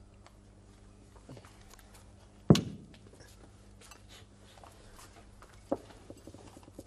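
Dinner-table clatter of china and cutlery: one sharp clink of a plate about two and a half seconds in, a lighter one near six seconds, and small clinks between, over a steady low hum.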